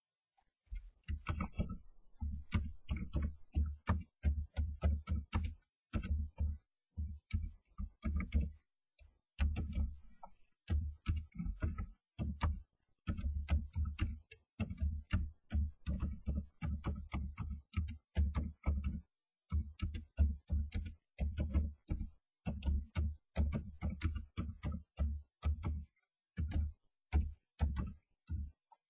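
Rapid dull knocking and tapping inside a wooden starling nest box, from European starlings pecking and scrabbling. The knocks come about five or six a second, in runs broken by short pauses.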